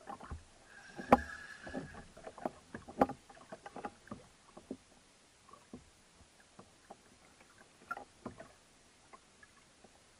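Irregular knocks, taps and small water slaps from a kayak and the angler's jigging tackle as the spinning reel is worked against a hooked amberjack. A short squeak about a second in is the loudest moment; the knocks thin out after the first few seconds.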